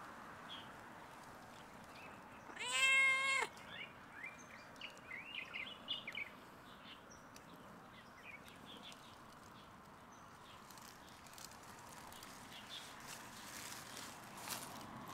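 Calico cat giving one long, loud meow about three seconds in. Later come faint scattered crunching clicks as it eats dry kibble.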